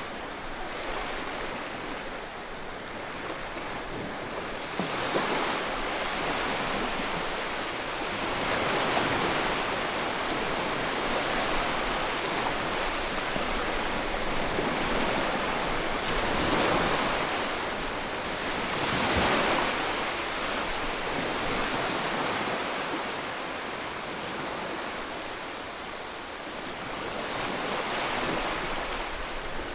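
Steady rush of flood water: a dense hiss that swells and eases every few seconds, with no voices or engines standing out.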